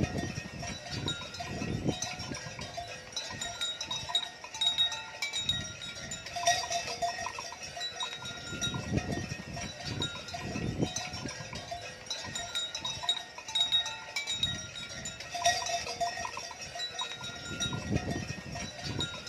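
Bells on a herd of cattle clanking irregularly as the animals are driven along, with recurring low rumbles.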